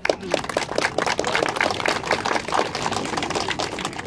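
Audience applauding: many hands clapping, starting suddenly and thinning out near the end.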